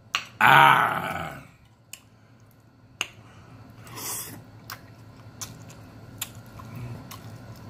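A man's short wordless vocal sound, falling in pitch, about half a second in. Then eating sounds follow: chewing, with scattered sharp clicks of a metal fork and a brief hiss about four seconds in.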